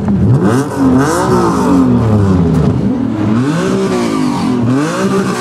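TVR Typhon's straight-six engine being revved hard, its pitch climbing and dropping several times in quick succession.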